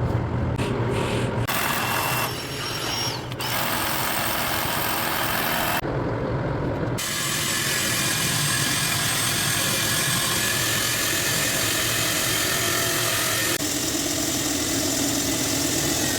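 Diamond core drill (coring machine) motor running as it bores into concrete, a loud steady grinding noise with a high whine over it, changing in tone abruptly several times.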